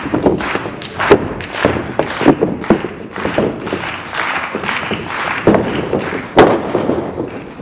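Thuds of wrestlers' bodies and feet on a wrestling ring's canvas, a run of sharp thumps roughly every half second, the loudest about six and a half seconds in.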